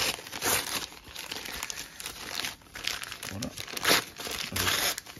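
Packing paper crinkling and rustling as hands unwrap a small box, in uneven bursts with the loudest crackle about four seconds in.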